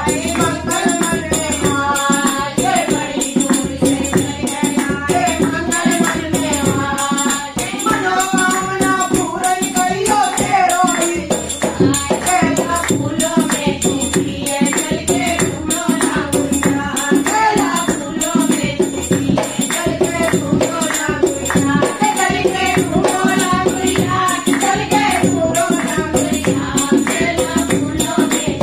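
Languriya folk devotional song: a woman singing in a strong voice over a fast, steady dholak beat with rattling jingle percussion.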